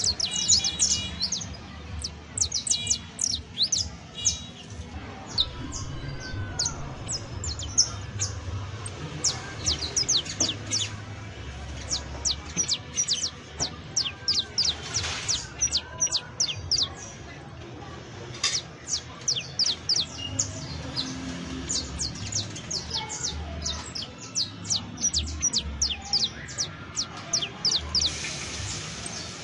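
Saffron finch (canario criollo) singing: dense runs of sharp, high chirps that sweep quickly downward, with a short pause a little past the middle.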